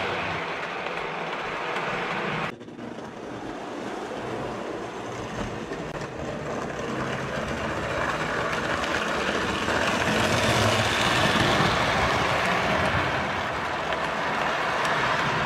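Prewar American Flyer O gauge tinplate train running on steel T-rail track. Its wheels roll along the rails with a steady noise that drops away abruptly about two and a half seconds in, then builds again and is loudest as the red passenger cars come past near the end.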